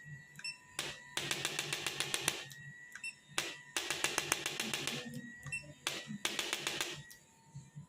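Chiropractic adjusting instrument tapping rapidly, in three bursts of quick clicks, each a second or so long with short pauses between.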